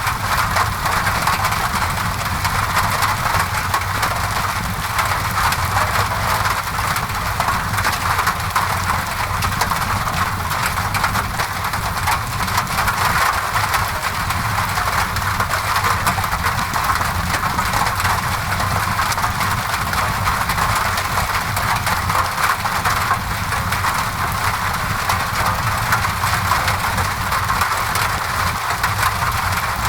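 Steady rain on a window mixed with a crackling fireplace: a constant hiss with a low rumble underneath and fine crackles throughout.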